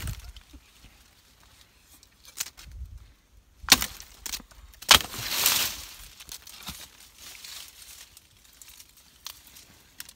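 A machete chopping into the woody stem of a bitter leaf (Vernonia amygdalina) shrub: several sharp strikes at uneven intervals, the loudest about four and five seconds in. A rustle of leaves and branches lasting about a second follows the fifth-second strike.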